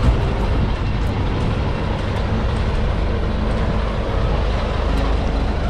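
Vintage city bus driving slowly past at close range, its engine running steadily.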